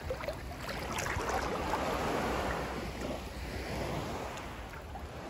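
Shallow sea water washing and lapping, swelling and easing over a few seconds, with wind buffeting the microphone.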